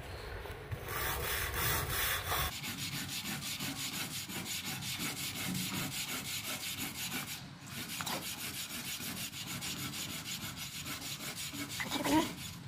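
Stiff deck brush scrubbing wet wooden deck boards in quick back-and-forth strokes, working loose mould that has soaked under a mould remover, with a short pause about two-thirds of the way through.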